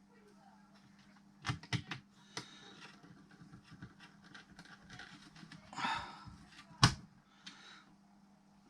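Small parts and tools being handled on a workbench while rummaging for a spare screw: a few light clicks and knocks, a short rustle about six seconds in, then one sharp click, the loudest sound, with a faint steady hum underneath.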